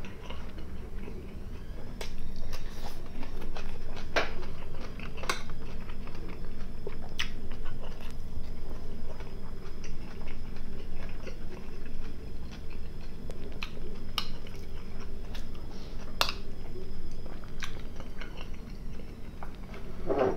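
Close-miked chewing of a mouthful of food, with irregular wet mouth clicks and smacks.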